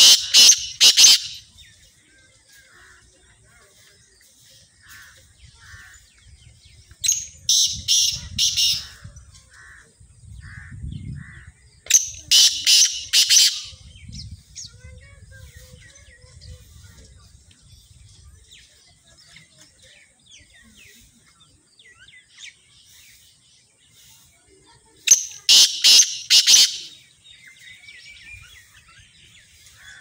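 Black francolin (kala teetar) calling four times, several seconds apart. Each call is a quick run of four or five loud notes lasting about a second and a half.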